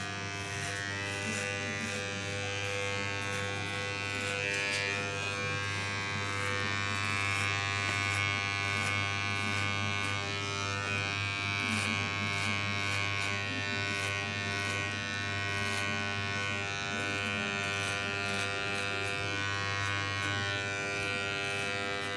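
Electric hair clipper running with a steady low buzz as its blade cuts short hair on the back and sides of a man's head.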